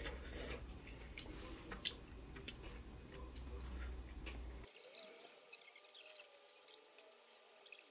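Faint small clicks and taps of eating at a meal over a low room hum, cut off abruptly about four and a half seconds in. After that only faint high chirping and a thin wavering tone remain.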